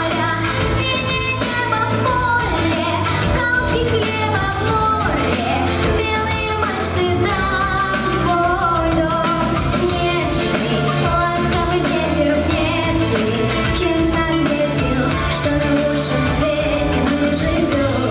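A young girl's solo voice singing a children's song over instrumental accompaniment, continuously at a steady level.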